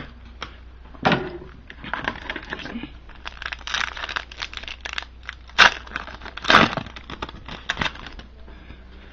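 Trading cards and their pack wrapper being handled: crinkling and rustling with quick clicks, and two louder sharp snaps a little past halfway.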